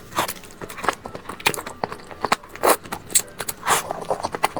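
Close-miked eating: chewing and biting, with a rapid run of sharp mouth clicks and a few longer crunchy smears.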